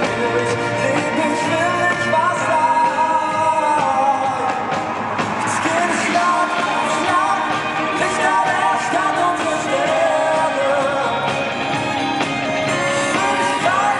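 Pop-style music with a singing voice.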